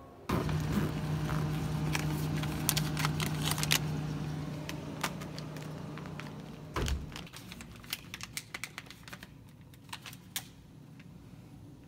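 A refrigerator hums steadily while a paper snack bag rustles and clicks as it is handled. About seven seconds in, the fridge door thumps shut and the hum stops, leaving a few scattered light clicks.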